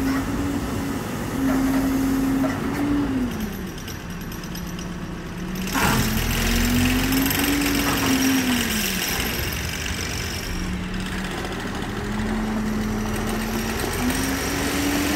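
Hidromek 102 S backhoe loader's diesel engine running, its pitch falling and rising several times as the backhoe arm is worked. There is one sharp knock about six seconds in.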